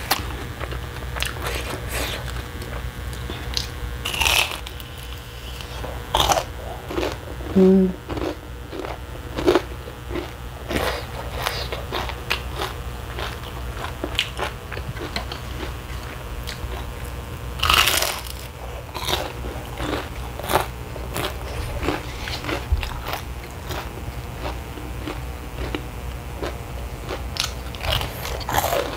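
Close-miked eating of crunchy fried chicken skin: crisp bites and crunchy chewing, with a steady low hum underneath.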